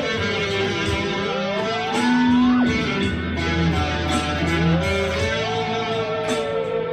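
Background music: an instrumental track with a lead melody sliding up and down in pitch over sustained bass notes.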